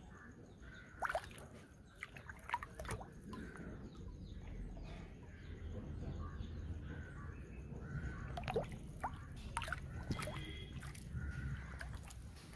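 Water dripping and sloshing, with scattered small clicks and knocks, as fish are being cleaned.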